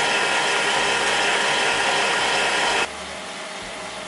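Cookmii stand mixer running at fairly high speed, its whisk whipping eggs and sugar: a steady motor whir with a faint whine. About three seconds in the sound drops suddenly to a quieter level and carries on.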